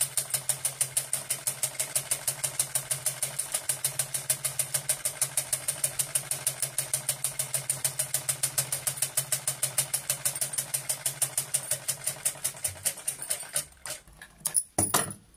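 Usha sewing machine stitching, its needle mechanism clicking evenly about six times a second over a steady hum. The cloth is feeding too slowly, which the repairer puts down to the feed dogs having sunk slightly. The stitching stops about a second and a half before the end, followed by a few sharp snips.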